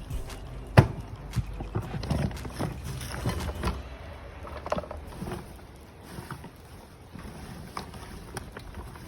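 A series of irregular knocks and clatters, the sharpest about a second in and most of them in the first few seconds, over a low wind rumble.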